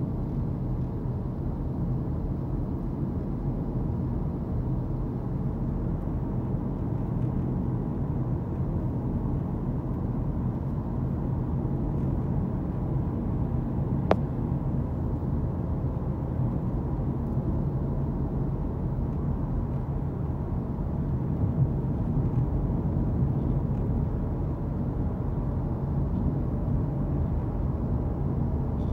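Steady low road and engine noise heard from inside a moving car, with one sharp click about halfway through.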